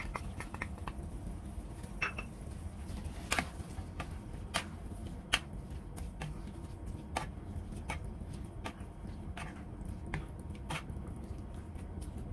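Wooden spoon knocking and scraping in a frying pan while stirring a thick curry sauce with vegetables: a few quick taps at the start, then sharp irregular knocks about once a second. A steady low hum runs underneath.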